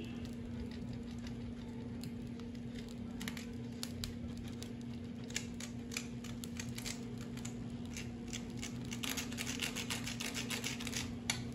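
Block of mozzarella cheese rubbed against a metal box grater: a run of short rasping strokes, sparse at first and coming thick and fast in the last few seconds. A steady low hum runs underneath.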